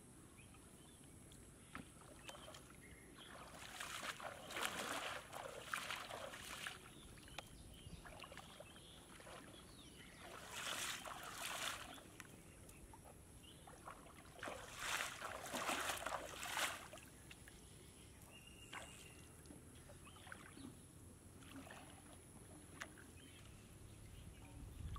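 Shallow water splashing and sloshing as a fishing net is lifted, shaken and gathered into a plastic basin, in three spells of a few seconds each, about four, ten and fifteen seconds in.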